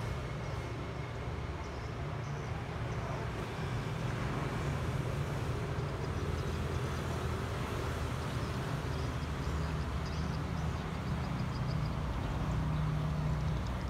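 Steady low rumble with a faint hiss: open-air outdoor ambience, with a few faint high ticks in the second half.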